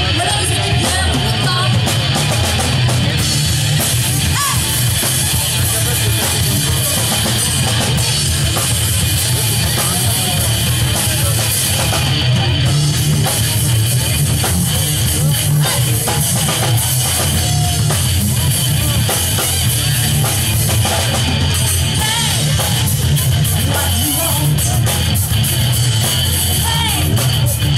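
Live rock band playing a song at full volume: electric guitars, bass and drum kit.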